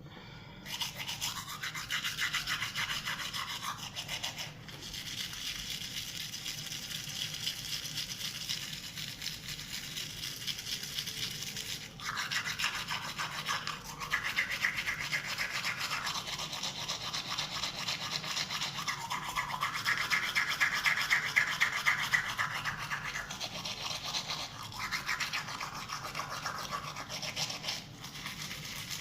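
Toothbrush scrubbing teeth in rapid back-and-forth strokes, with brief breaks about four and twelve seconds in, stopping just before the end.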